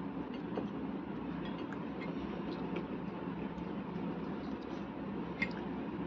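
A few faint small clicks of a wire being handled and fitted into a terminal on an amplifier board, over a steady background noise.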